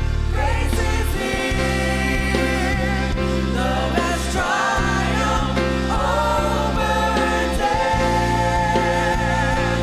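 Church choir singing a gospel worship song with instrumental accompaniment, voices holding long notes with vibrato over steady low bass notes.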